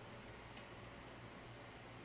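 Near silence: faint room tone with a steady low hum and a single faint click about half a second in.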